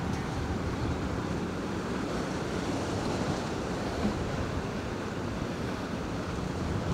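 Choppy sea washing against the jetty, a steady rushing noise, with wind buffeting the microphone in a low rumble.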